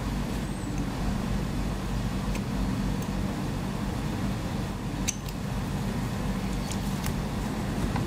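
Steady low rumble with a faint low hum throughout, and a few faint light clicks of a pocket-knife blade scraping the insulation off a thin wire.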